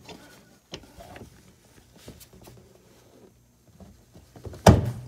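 Faint rustling and small clicks of hands working at a hood gas strut's mount. Near the end there is one loud, sharp snap as the worn strut's end pops off its ball-stud mount.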